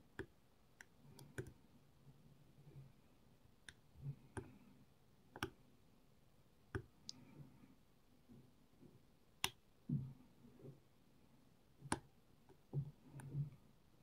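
Irregular, sparse metallic clicks from a dimple-lock pick and tension tool working the seven pins of a Herman dimple lock, mixed with a few soft dull knocks from handling the lock.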